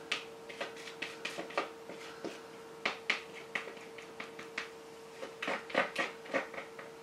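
Spatula scraping the last of the cake batter out of a plastic mixing bowl: a run of short, irregular scrapes and taps, with a faint steady hum underneath.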